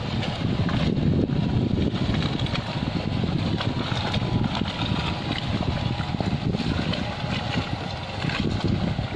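Steady low rumbling noise aboard a small boat at sea, with wind buffeting the microphone and a faint steady hum underneath.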